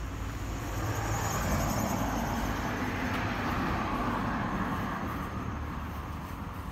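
A vehicle passing by on the street: its noise swells about a second in and fades away near the end.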